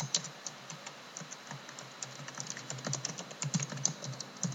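Typing on a computer keyboard: a quick, irregular run of keystroke clicks as a line of text is typed.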